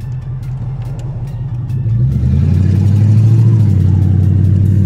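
Lexus 3UZ-FE V8, swapped into a Mercedes C230 coupe, pulling under throttle, heard from inside the cabin. It grows louder about two seconds in, then holds a steady drone.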